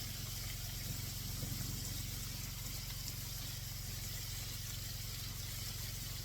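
Steady hiss of battered deer backstrap frying in hot oil, over a low steady hum.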